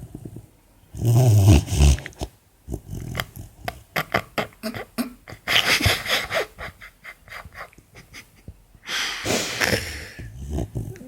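Four-month-old Labrador puppy snoring in her sleep: irregular loud breaths, the loudest about a second in and again near the end, with a run of quick clicks in between.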